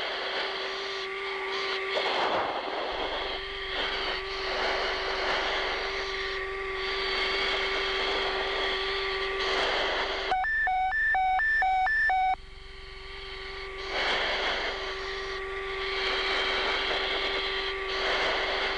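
Jet cockpit audio on a night approach: a steady electrical hum over engine and air noise, swelling now and then. About ten seconds in, the noise drops away for two seconds of rapid beeping, about five beeps, before the cockpit noise returns.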